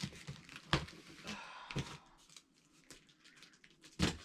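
Knife cutting and scraping at a cardboard box and its packing tape: scattered clicks and scratches, with one louder knock near the end.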